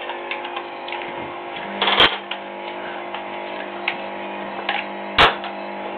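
Plastic screw cap of a milk bottle being twisted and picked at by hand, giving small scattered clicks and ticks, with a sharper click about two seconds in and another near the end. A steady hum runs underneath.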